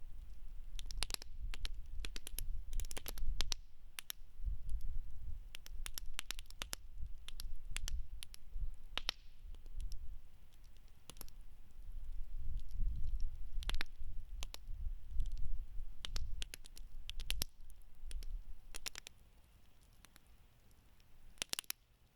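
Wood campfire crackling: irregular sharp pops and snaps from the burning wood, over a low rumble that comes and goes and dies away near the end, followed by a quick cluster of pops.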